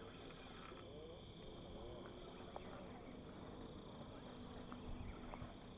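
Insects chirring steadily in the night, a faint high-pitched drone, with a low steady hum joining about halfway through.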